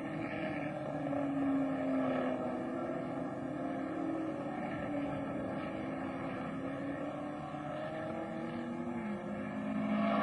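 Racing car engine running hard, its pitch holding fairly steady with small rises and falls, then dropping near the end.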